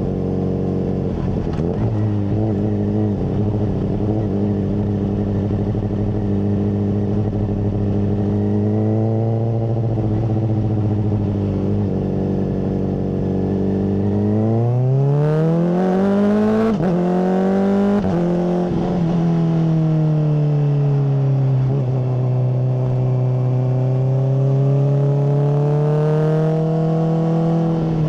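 Honda CBR600RR inline-four with a MIVV full exhaust, running at fairly steady revs. About halfway through it revs up sharply, drops as it shifts, then runs on with the revs easing up and down.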